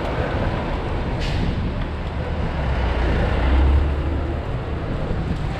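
Street traffic: car engines and tyre noise in a busy city street, with a low rumble that swells about three and a half seconds in and a short high hiss about a second in.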